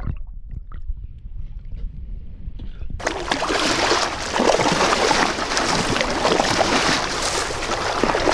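Muffled underwater sound of bubbles and churning water for about three seconds, then an abrupt change to open-air wind and sea noise, a loud steady hiss.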